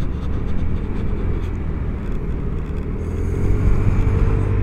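Vespa GTS300 HPE scooter's single-cylinder engine running steadily under way, under a rush of wind noise. About three seconds in the engine gets louder and a little higher in pitch as the throttle opens.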